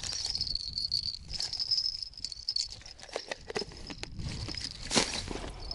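Clicks and rustles of small plastic fishing tackle being handled, the sharpest click about five seconds in, over a steady high chirring in the background and a low rumble of wind on the microphone.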